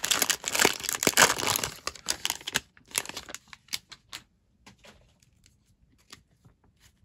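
The plastic wrapper of a basketball-card pack crinkling and tearing as it is pulled open, for about two and a half seconds. After that come a few sparse, fainter clicks and ticks of the stack of cards being handled.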